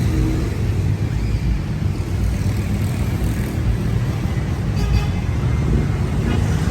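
Road traffic running past on a busy street: a steady rumble of cars and engines, with a brief faint high tone about five seconds in.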